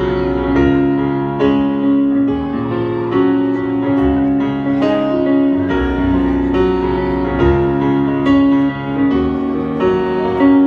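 Song music led by piano, with notes and chords struck in a steady rhythm over a held bass line.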